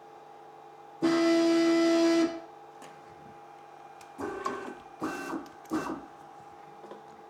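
CNC machine's stepper motors whining as the axes drive during corner probing with a 3D touch probe. There is one steady, even-pitched move of a little over a second, then three short moves in quick succession about four seconds in. A faint steady hum runs underneath.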